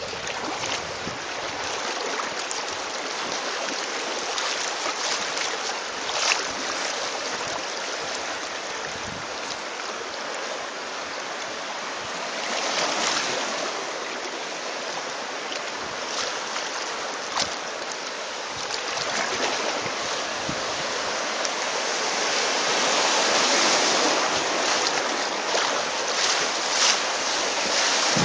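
Rushing water of a creek riffle around a kayak, with a few brief sharper splashes; it grows louder near the end.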